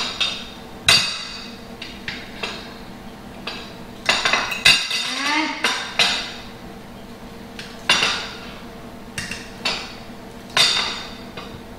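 A metal fork knocking and clinking against a plate at irregular intervals, roughly one strike a second with a short ring after each, while ripe bananas are mashed.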